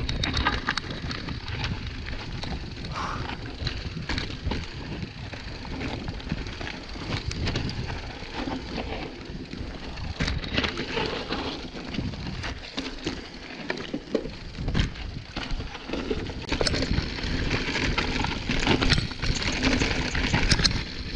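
Mountain bike descending a rocky, loose-gravel trail: tyres crunching over stones and the bike rattling and knocking over rocks, with an uneven low rumble of wind on the microphone.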